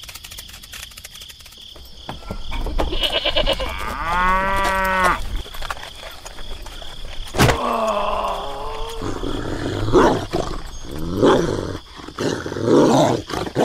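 Several drawn-out animal calls, one after another, over a steady high-pitched drone, with scattered sharp clicks.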